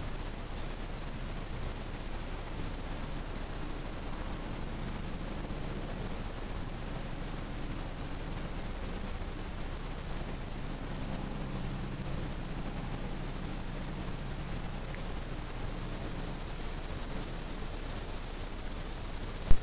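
A steady chorus of insects trilling, one unbroken high-pitched drone, with a single sharp click just before the end.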